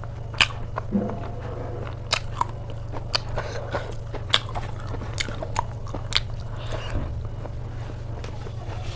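Close-miked mukbang eating: a person biting and chewing, with about a dozen irregular crisp crunches over a steady low hum.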